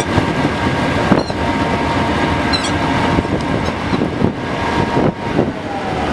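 A fishing boat's engine running steadily, with wind noise and a few light knocks.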